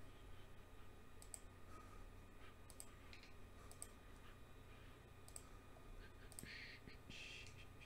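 Near silence over a low hum, with a few faint scattered clicks and two short, soft rustles near the end.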